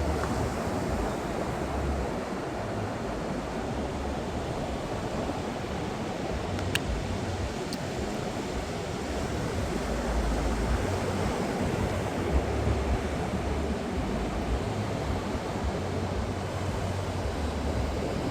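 Atlantic Ocean surf breaking and washing up the beach in a steady rush, with wind gusting on the microphone.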